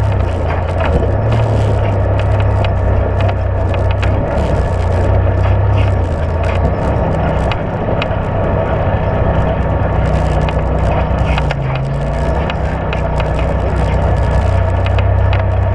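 Side-by-side UTV engine running as the machine drives along a dirt trail, its engine note rising and falling a little with the throttle. Tyres crunch over dirt and gravel, with scattered knocks and rattles from the chassis.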